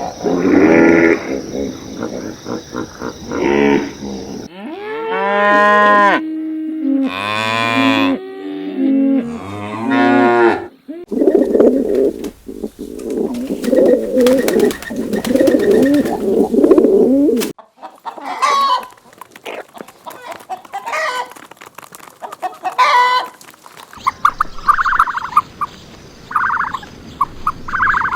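A run of different farm-animal calls in short separate clips, among them cattle mooing and poultry calling.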